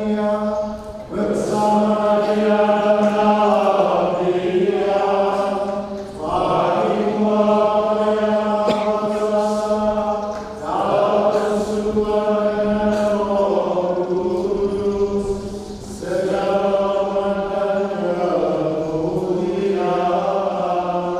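Sung liturgical chant of the Mass's closing doxology, the priests' voices in four long phrases with short breaks between, over a steady held note.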